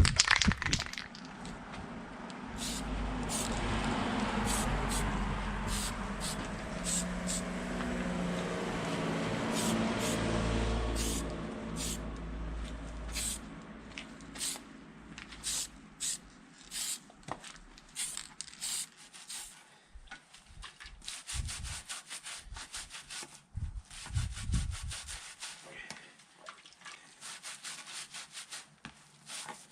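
Repeated short rasping strokes of hand sanding, coming at an uneven pace through the second half. Before them comes a steadier, louder sound with a low hum.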